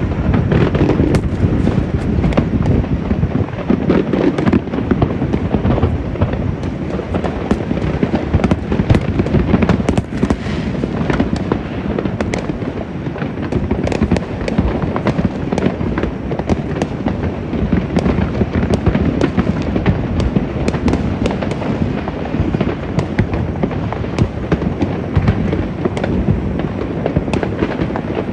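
A dense, continuous barrage of fireworks and firecrackers: many overlapping bangs and crackles with no break.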